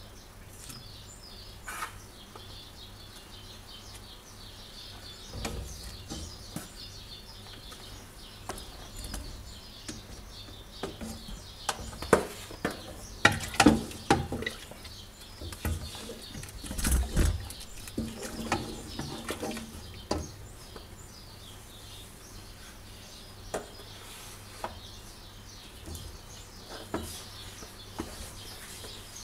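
A long wooden spoon scraping and knocking against an aluminium pot as a thick mixture of ground sesame and hazelnut is stirred into sugar syrup. The knocks are loudest about halfway through. Small birds chirp in the background.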